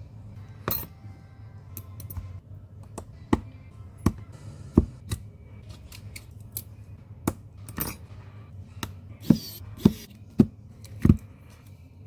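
Small repair tools clicking and tapping against a phone's glass and plastic body: more than a dozen sharp, irregular clicks, the loudest coming close together near the end, over a steady low hum.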